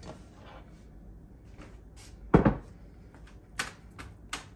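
Kitchen handling sounds: a heavy thump about halfway through, then a few lighter clicks and knocks near the end.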